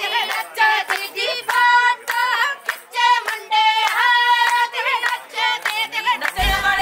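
A group of women and girls singing together in high voices, with hands clapping along. Near the end, the deep bass of background music cuts in.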